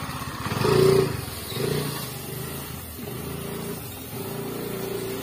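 Honda Grazia scooter's single-cylinder engine running as it is ridden over dried mustard stalks to thresh the seed. The engine swells in loudness about a second in, and again more briefly near two seconds, as the throttle is opened.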